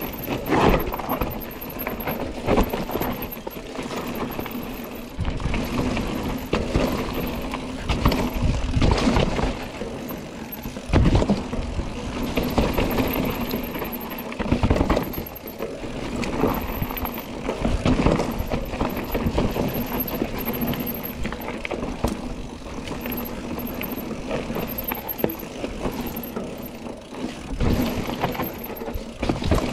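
Mountain bike descending a rough trail: continuous rolling noise from the tyres with frequent knocks and rattles as the bike hits bumps.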